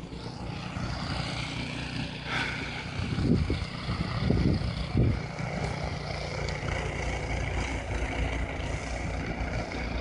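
Snowblower engine running steadily as it throws snow.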